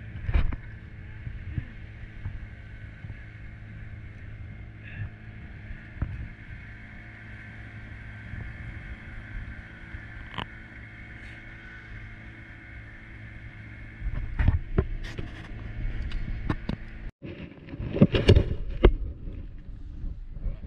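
Small wooden fishing boat's engine running steadily while under way, with a few sharp clicks. Louder knocks and clatter come in the last few seconds, after an abrupt break.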